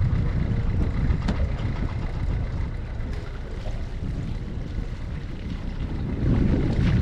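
Uneven low rumble of noise on an open boat, with one sharp click about a second in.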